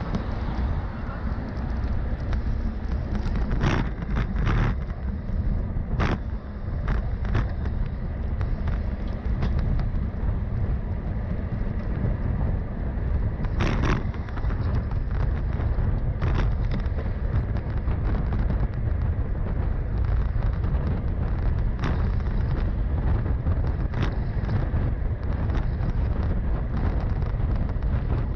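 Wind buffeting the microphone with a steady low rumble, broken by a few sharp clicks or knocks.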